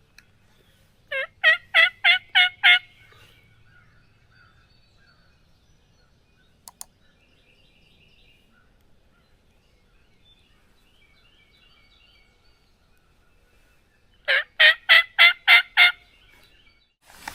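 Turkey yelps: two runs of six evenly spaced, loud yelps, about twelve seconds apart. Faint small birds chirp in between, and there is a single click near the middle.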